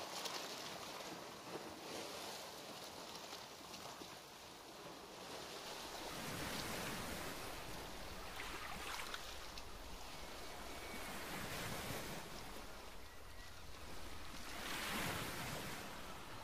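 Ocean water sound: a steady wash of noise rising and falling in slow swells, with a deeper rumble joining about six seconds in.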